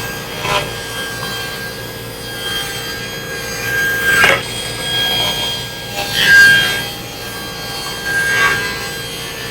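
Table saw running and cutting sheet-good panels on a tapering jig, a steady whine and cutting noise with several louder swells; the loudest comes about six seconds in.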